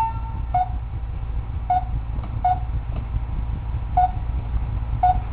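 Toy kitchen's electronic button beeping: one slightly higher beep at the start, then five short beeps at uneven intervals as the button is pressed again and again, over a steady low hum.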